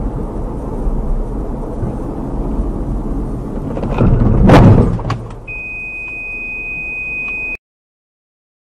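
Car driving in city traffic, engine and road noise steady, then about four and a half seconds in a loud crash as it strikes the car cutting in close ahead. A steady high-pitched beep follows for about two seconds.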